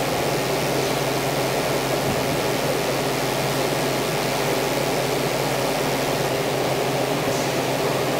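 Steady room noise: a constant even whoosh with a low hum underneath, unchanging throughout.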